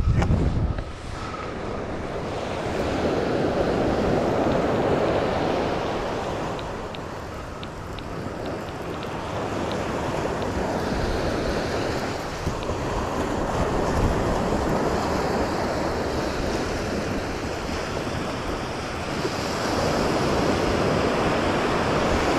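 Sea surf washing onto a sandy beach, swelling and ebbing every few seconds as waves break, with wind buffeting the microphone.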